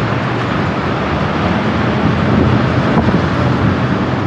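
Steady wind rush on the microphone of a moving electric bicycle, with road traffic noise underneath.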